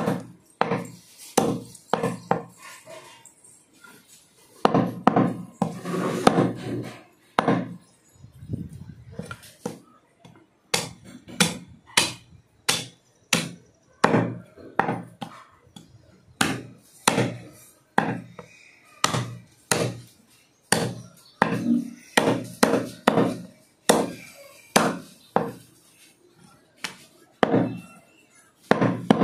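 Cleaver chopping through goat meat and bone: a long run of sharp, irregular strikes, about one or two a second.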